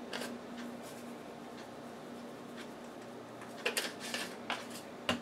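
Spice shaker of onion powder being shaken and handled: a few soft rattles and clicks, a small cluster of them about four seconds in, and one sharper click near the end. A faint steady hum runs underneath.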